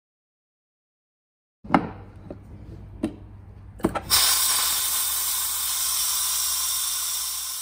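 A few sharp metal clicks as a stainless dispense head is seated and locked onto a plastic keg. About four seconds in, a loud, steady hiss follows: gas escaping as the keg's pressure is released.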